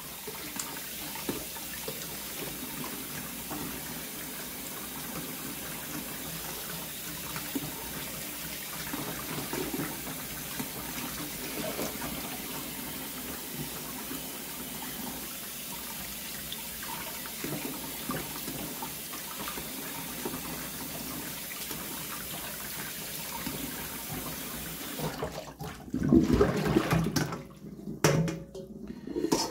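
Kitchen faucet running steadily into a stainless steel bowl of water while fish fillets are swished and rinsed by hand. About 25 seconds in the water flow stops and is followed by louder splashing and clunking as the steel bowl is tipped out into the sink.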